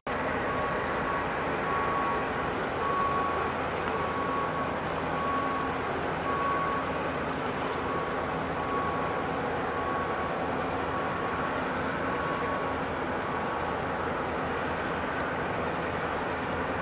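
Steady engine and water noise from tugboats working against a ship's hull, with a high short beep repeating about once a second that stops about three-quarters of the way through.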